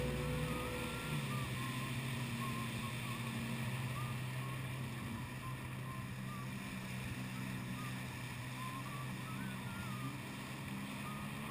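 Jet ski engine running at a steady, moderate pace, with water rushing and splashing along the hull.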